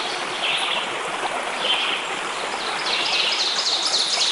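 Steady rush of flowing water with birds twittering over it now and then, in a longer spell of twittering near the end.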